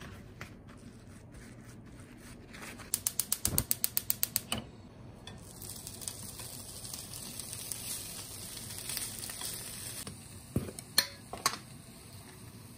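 A quick run of about a dozen sharp clicks, then thick fried tofu (atsuage) sizzling gently in a frying pan as it is laid in with chopsticks. Three knocks near the end.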